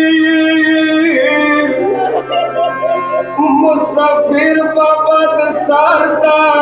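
A male voice singing a Shia matam lament (noha) with music accompaniment: a long held note that breaks about a second in into a wavering, ornamented melodic line, over a steady low drone.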